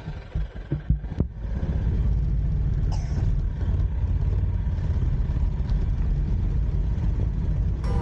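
Motor scooter riding off, its running drowned in a steady low rumble of wind on the microphone, after a few short low thumps at the start.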